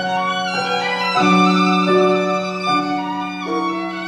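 Violin playing a slow classical melody with grand piano accompaniment. A low note is held underneath while the melody moves from note to note about once a second.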